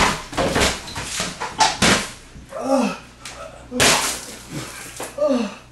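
An inflatable exercise ball slams into a man, and he crashes to a hard kitchen floor: a quick run of loud thumps and slaps in the first two seconds and another thud about four seconds in. Between them come short pained groans that fall in pitch, from the hurt man lying on the floor.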